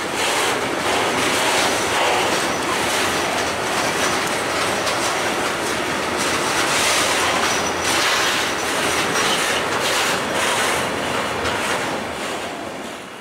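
Freight train of bogie gas tank wagons rolling past, wheels clattering rhythmically over the rail joints, with a faint high wheel squeal in the middle. The sound falls away near the end as the last wagon passes.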